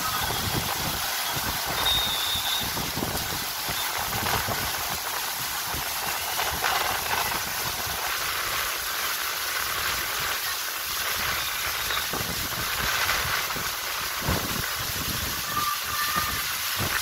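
Water rushing and spraying steadily around an empty bowl-shaped water slide, fed by jets at its rim: a continuous hiss.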